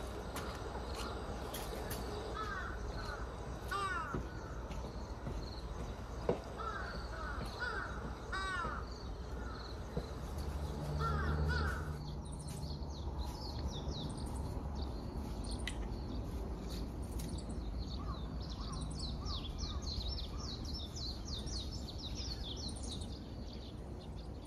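Crows cawing repeatedly in short arched calls, with a brief low rumble swelling just before the calls stop about halfway through. After that, small birds chirp in quick, high, overlapping calls over a rural outdoor background.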